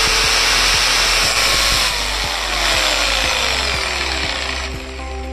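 DeWalt 650-watt electric jigsaw running with no blade fitted, then switched off: its motor whine falls steadily in pitch as it winds down from about two seconds in, and the noise drops away near the end.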